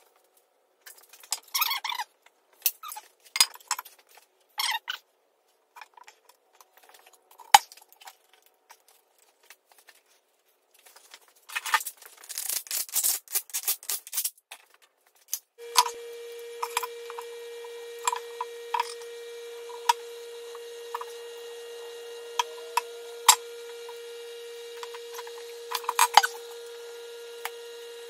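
Clanks and clinks of steel as the heavy compartment covers and their bolts are handled on a John Deere 450 dozer, with a cordless impact driver rattling the cover bolts in for a few seconds near the middle. A steady hum starts just after that and continues under more scattered clinks.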